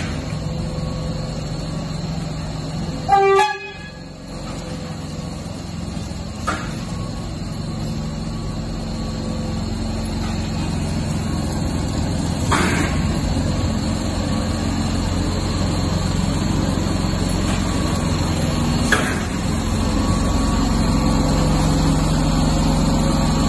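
A SEPTA subway car gives one short horn toot about three seconds in, then a steady low hum from the moving car grows louder as it comes closer, with a few faint clicks.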